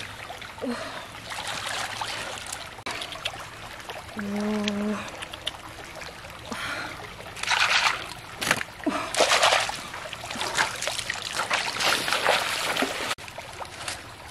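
Hands splashing and sloshing in shallow stream water, in irregular bursts, as a woman gropes in the mud of the streambed. About four seconds in there is one short pitched sound.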